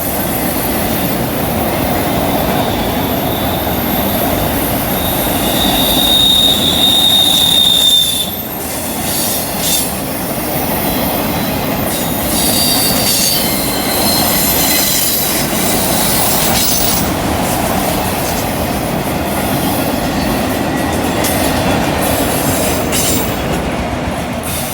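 Railroad cars rolling through a curve on steel rails, a steady rumble with wheel flanges squealing in a high, thin tone that comes and goes, loudest about a third of the way in, and the clickety-clack of wheels over rail joints.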